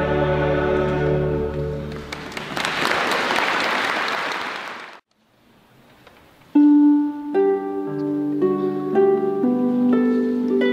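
A choir's final held chord ends about two seconds in, and audience applause follows, cutting off abruptly. After a second or so of silence, a harp starts playing, plucking a melody over lower bass notes.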